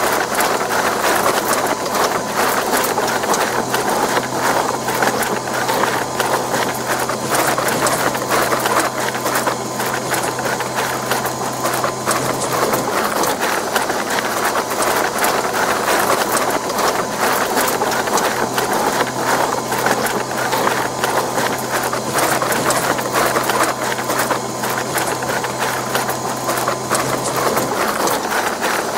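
Electric stand mixer kneading bread dough: a steady motor hum with a dense run of knocks and slaps as the dough is worked in the bowl.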